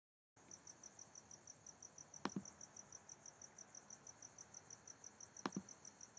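Faint high-pitched pulsing tone, about five pulses a second, over a low steady hum, with two sharp computer mouse clicks a few seconds apart.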